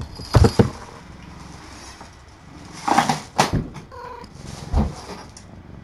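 Domestic cat meowing loudly a few times, with a couple of dull thumps, one about half a second in and one near the end.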